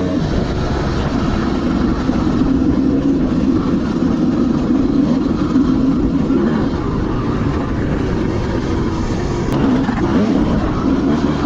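Dirt bike engine running steadily under way, over a constant rushing noise.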